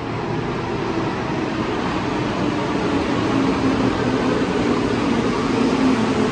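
Rubber-tyred Santiago Metro Line 1 train running, getting gradually louder: a rushing noise with a steady hum of several low tones.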